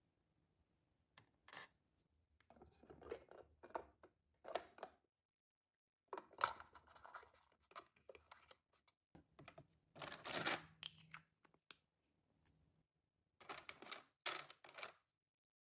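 Small plastic miniature pieces and their packaging being handled: scattered rustling, tearing and light clicks in short clusters with pauses between them.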